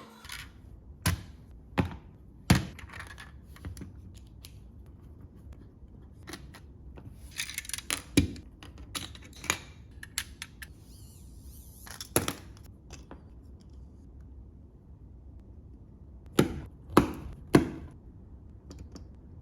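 Irregular sharp clicks and knocks of small hard objects, with a few short scraping hisses around the middle and three knocks in quick succession near the end.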